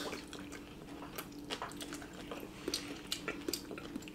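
People chewing seafood: scattered small wet mouth clicks and light taps, with a faint steady hum underneath.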